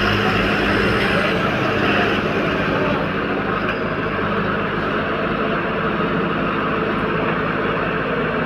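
Truck engine idling steadily, a constant low hum under a wash of noise that eases a little a few seconds in.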